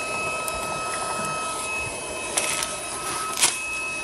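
Steady mechanical whirring with a thin high whine, under a few knocks and one sharp click about three and a half seconds in, made while the induction heater's braided coil and leads are handled and fitted over a rusty bolt.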